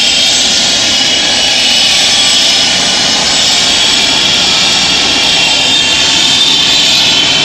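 Trauma helicopter on the ground with its turbine engines and rotor running: a loud, steady high turbine whine over a continuous rushing noise.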